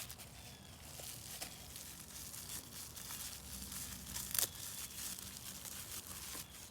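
Packaging crinkling and tearing as a new fuel injector is unwrapped, with scattered small clicks and one sharper click about four seconds in.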